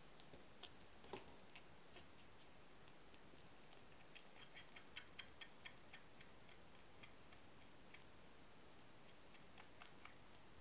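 Faint, soft clicking of a newborn calico kitten suckling at a nursing bottle's teat, with a quick run of clicks about four seconds in.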